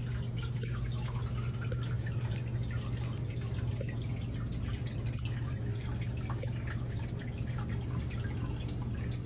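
Reptile enclosure mister spraying a fine water mist, with rapid scattered drips of water over a steady low hum.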